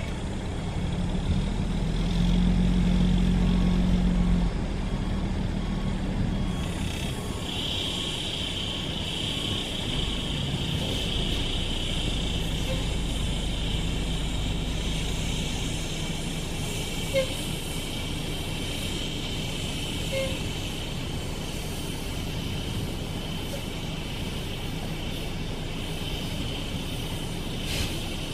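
Bus engine running as the bus is slowly manoeuvred, louder for a couple of seconds near the start. A steady high-pitched drone sits over it from about a quarter of the way in.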